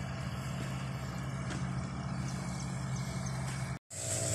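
A steady low hum of an engine or motor running at constant speed, which cuts out briefly near the end.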